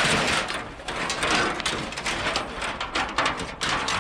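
Steady scraping and rattling with many small irregular knocks: scrap being handled.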